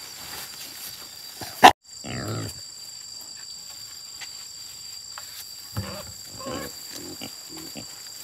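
Pigs grunting several times in short low grunts. Just under two seconds in there is a brief, very loud sharp sound that cuts off abruptly. A steady high-pitched whine runs underneath.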